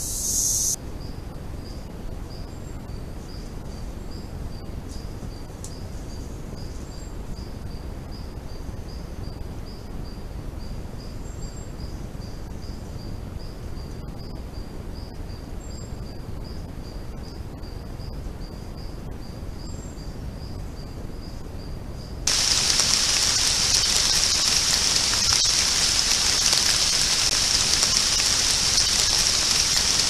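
Forest insect sounds: a faint high chirp repeating in a steady rhythm about twice a second, then, about two-thirds of the way through, a sudden switch to a loud, dense insect chorus, a steady high-pitched buzz.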